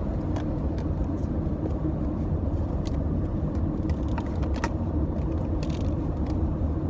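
Steady low rumble of road and engine noise inside a moving car's cabin, with a few light clicks and taps.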